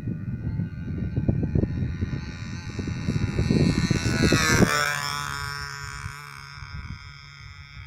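Radio-controlled model airplane's engine getting louder as it flies in low, its pitch dropping as it passes, then running fainter and steady far off. Wind buffets the microphone during the first half.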